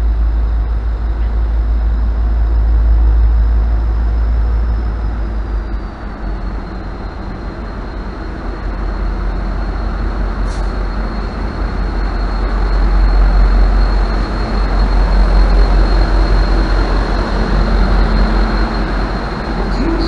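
Diesel train running at the platform: a steady low engine rumble with dense mechanical noise that swells louder in the second half, and a thin high whine that slides a little lower about six seconds in.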